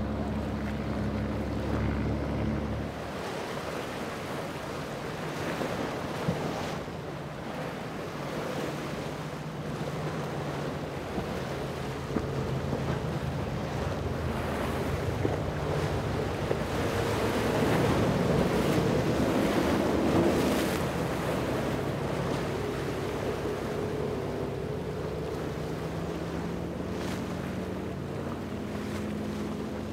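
Powerboat engines running over rough water, with waves and spray crashing around the hulls and wind noise on the microphone. For the first few seconds it is a center console's twin Mercury 300R outboards. The sound swells loudest a little past halfway.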